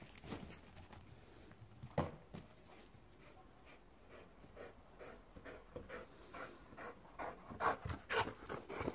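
A dog panting in quick, short breaths, louder near the end as it comes back with a ball in its mouth, with a single sharp knock about two seconds in.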